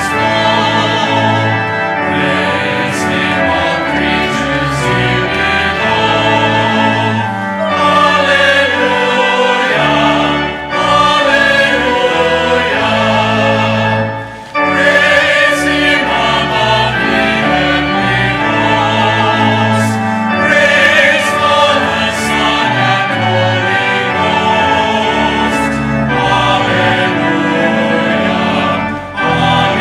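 Church choir singing with organ accompaniment: sustained chords over held low organ notes, with brief breaks between phrases.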